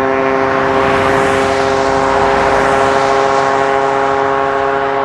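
Yamaha DT125 single-cylinder two-stroke engine running at a steady high rpm through an Athena aftermarket silencer, its pitch holding constant. A rushing noise swells and fades about a second in.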